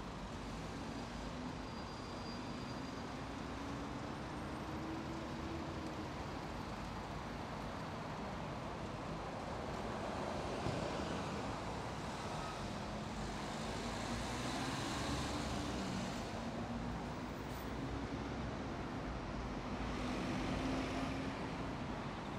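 Steady city road traffic from cars and buses, with engine tones rising as vehicles pull away and a few swells of tyre noise as vehicles pass.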